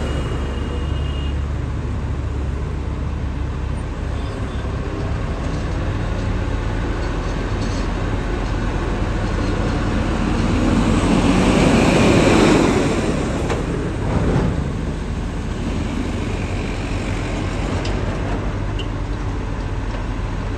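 Road traffic with a steady low rumble. A heavy vehicle passes close by near the middle, growing louder and then fading.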